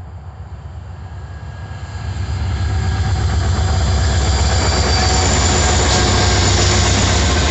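Norfolk Southern diesel-electric freight locomotives passing close by: a deep engine rumble with the rush of wheels on rail, building sharply about two seconds in as the lead units go past, then the rolling of the tank cars behind them.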